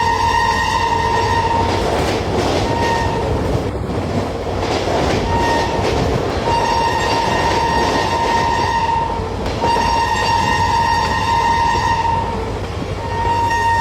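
Train horn sounding in repeated blasts of one steady note: a blast that ends about a second and a half in, two short toots, then two long blasts of about three seconds each, and another starting near the end. Under the horn runs the constant rumble of the moving train.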